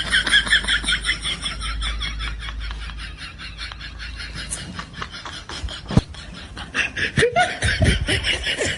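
Laughter meme sound effect: a person laughing in a long run of quick, rapid bursts, easing off in the middle and picking up again near the end.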